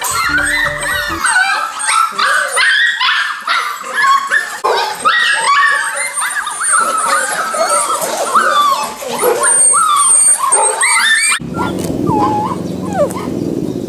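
A crowd of golden retriever puppies whining and yipping all at once, many short high cries overlapping. About eleven seconds in it cuts abruptly to a low outdoor rumble with a few faint squeaks.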